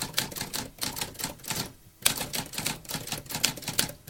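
Typewriter typing: a fast run of key strikes, a short pause about a second and a half in, then more typing starting with a loud strike.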